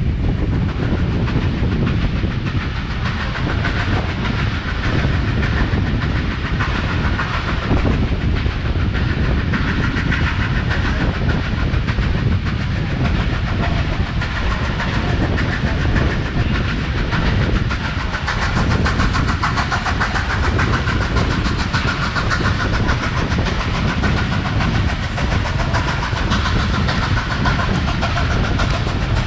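Steam-hauled train behind locomotive 3801 running along the line: a steady rumble with wheel-on-rail noise that doesn't let up.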